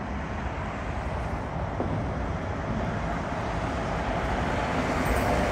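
Steady road noise of a moving car heard from inside the cabin: a low rumble of tyres and engine with a hiss of traffic, growing slightly louder near the end.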